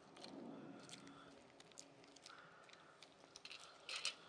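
Shiba Inu crunching dry kibble with its mouth held open: faint, scattered crisp crunches, with a louder cluster near the end.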